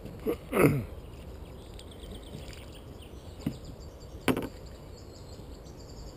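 Landing-net pole knocking and creaking against a wooden fishing platform's decking: a short creak falling in pitch about half a second in (the loudest sound), then a soft thud and a sharp knock about four seconds in.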